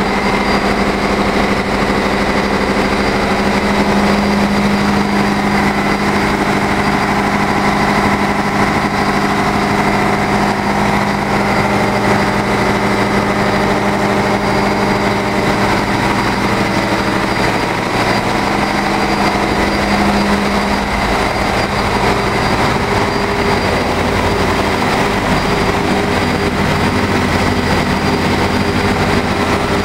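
Steady, loud machinery din of a cargo ship's engine room: running diesel machinery, pumps and electric motors making a continuous drone with a strong low hum and a thin high whine.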